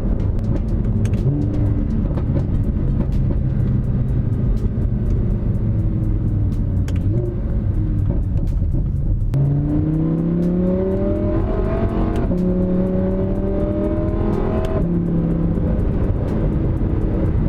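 Audi R8's V10 engine cruising, then accelerating from about nine seconds in, its pitch rising and dropping sharply twice as it shifts up a gear through the paddle-shift gearbox.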